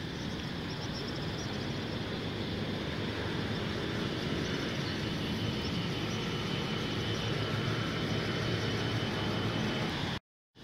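Steady rumble of distant road traffic, with a thin high steady tone over it. It cuts off abruptly near the end.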